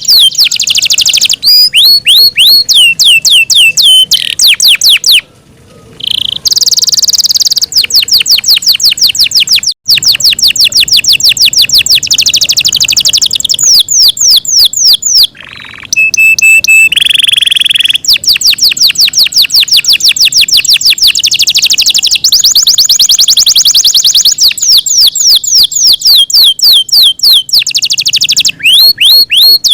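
Yorkshire canary singing loudly: long rapid trills of repeated high falling notes alternating with buzzy rolls, broken by short pauses about five and fifteen seconds in.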